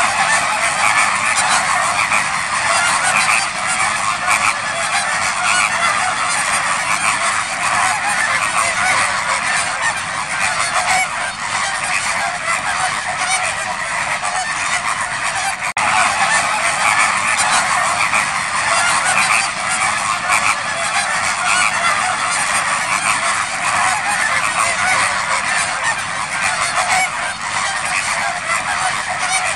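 Dense, unbroken din of a large crowd of waterbirds calling at once, many goose-like honks overlapping without pause.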